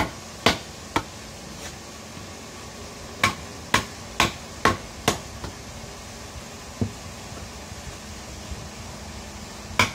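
A hand-forged chopping knife striking into a wooden beam in sharp, separate chops. There are two in the first second, a quick run of five about three to five seconds in, a softer one near seven seconds and one more near the end. This is a chopping test of the blade's heat treatment.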